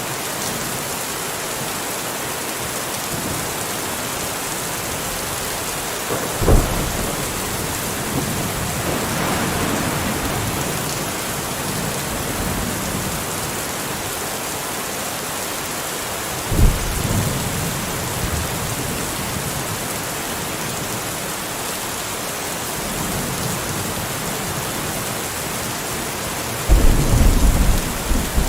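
Steady rain in a thunderstorm. Sudden thunderclaps come about six and sixteen seconds in, with low rumbling between them, and the loudest, longest peal comes near the end.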